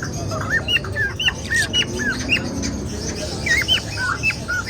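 Many caged birds chirping together: short whistled chirps that rise and fall, several a second and overlapping, over a low background rumble.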